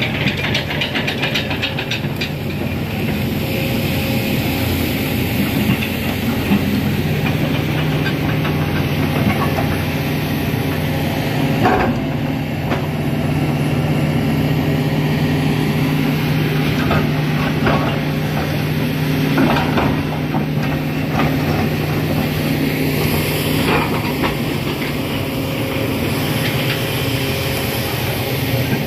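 Tracked hydraulic excavator's diesel engine running steadily up close, with a steady low hum setting in about seven seconds in and a few short knocks.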